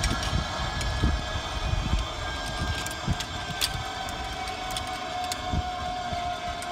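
Zipline trolley pulleys running along the steel cable: a steady whine whose pitch sinks slowly, over wind rumble on the microphone and scattered clicks.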